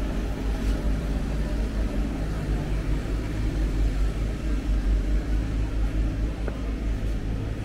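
Street traffic: a vehicle engine running with a steady low rumble and hum.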